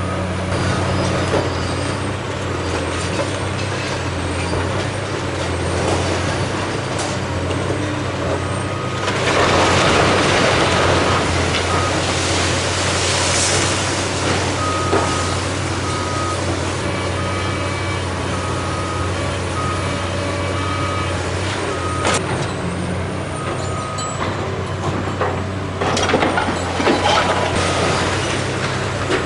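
Diesel engines of Caterpillar hydraulic excavators running steadily on a demolition job. A loud rushing noise starts about nine seconds in and lasts a few seconds. A reversing alarm beeps repeatedly through the middle, and near the end there are knocks and clatter of brick rubble as a wall is torn down.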